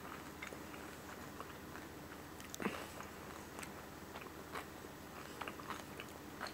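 A person chewing food with her mouth closed: faint, irregular wet clicks and smacks, one a little louder about two and a half seconds in.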